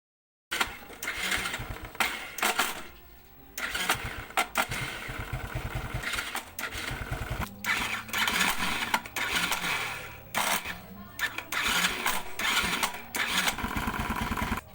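Motorcycle electric starter cranking with a harsh grinding rattle, repeated several times with short breaks, the engine catching and running in between. This starting noise is typical of a worn starter bendix drive or starter clutch.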